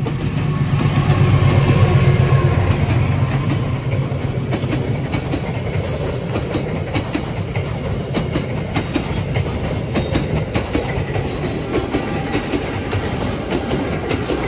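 Diesel-electric locomotive of a passenger train passing close by, its engine rumble loudest in the first two to three seconds. It is followed by the passenger coaches, whose wheels clatter in a steady clickety-clack over the rail joints.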